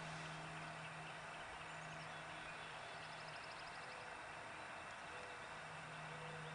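Quiet open-air background: a faint steady hiss with a low steady hum, and a brief faint trill about three seconds in.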